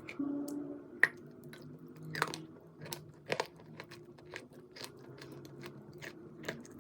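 Edible chalk being bitten and chewed, a series of sharp crunches and crackles with the loudest snap about a second in.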